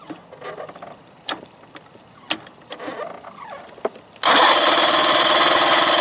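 A few sharp clicks and handling knocks, then about four seconds in a loud, steady mechanical buzz starts abruptly as the Johnson 25 hp two-stroke outboard motor is started.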